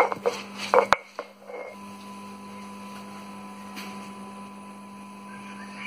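A stone roller crushes bird's eye chillies on a granite grinding stone in a few quick scraping knocks, ending with a sharp knock about a second in. After that only a steady electrical hum remains.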